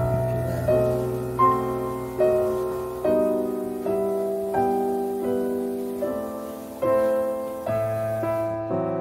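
Background piano music: a slow, gentle melody with a new note struck about every 0.8 seconds, each one ringing and fading.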